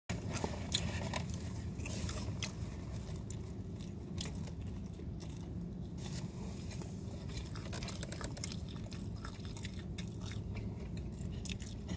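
A person chewing and biting into a slice of pizza close to the microphone, with many short mouth clicks throughout, over a steady low hum.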